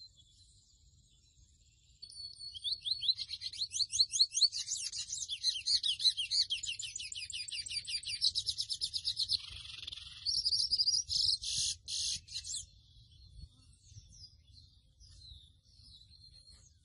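Song of a seedeater, the 'mochuelo' or 'pico de plata azul'. It is a long, rapid run of high twittering notes and quick trills lasting about ten seconds, ending in a few buzzy notes, then a few faint scattered chirps.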